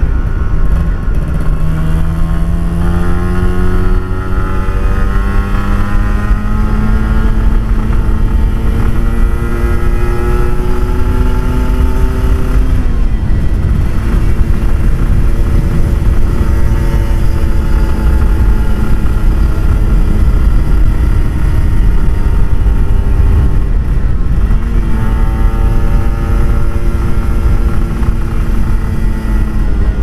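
Kawasaki Ninja RR 150's single-cylinder two-stroke engine running through an Eighty Racing aftermarket exhaust. Its pitch climbs slowly for about twelve seconds, drops suddenly, holds steady, then dips and climbs again near the end.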